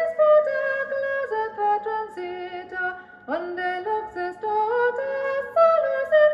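Bush SRP51 record player playing a choral carol record: a wordless melodic passage between sung refrains, with notes changing every few tenths of a second and a note sliding up about halfway through.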